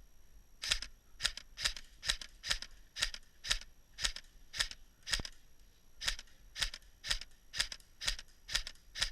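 Footsteps crunching at a steady walking pace, about two steps a second, with a brief stop about five seconds in.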